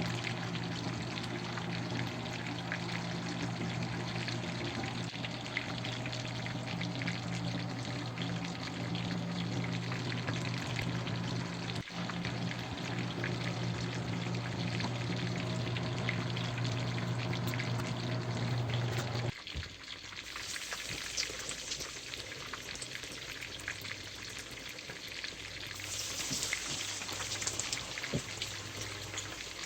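Chicken frying in hot oil, a steady sizzle with fine crackles. A low steady hum runs under it for the first two-thirds, then stops suddenly and the sizzle carries on, brighter.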